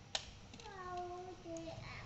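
A single sharp click, then a child's voice holding one sung or drawn-out vowel for about a second, sliding slightly down in pitch.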